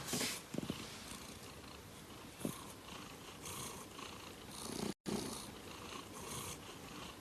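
Calico cat purring close to the microphone, a continuous low rumble with breathy hiss, with a few soft thumps; the sound cuts out for a moment about five seconds in.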